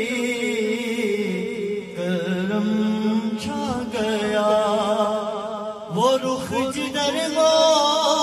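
Devotional Urdu singing in praise of a Sufi saint: a voice holding long, wavering, ornamented notes, with new phrases starting about two and six seconds in.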